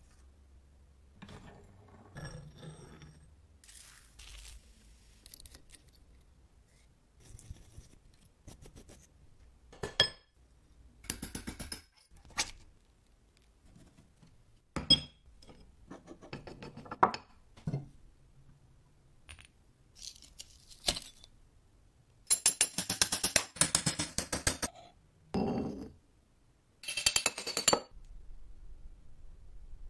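Metal parts of a vintage Wilton bullet vise clinking, knocking and scraping as the vise is taken apart and the pieces are handled and set down. The sound comes as a series of separate sharp clinks, with a longer run of rattling clinks about two-thirds of the way through.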